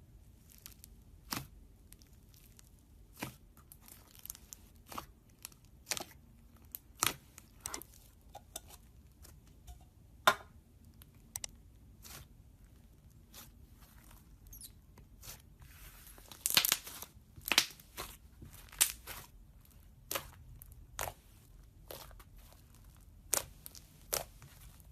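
Slime being pressed and stretched by hand, giving irregular sharp crackles and pops, with a quick cluster of them about two-thirds of the way through.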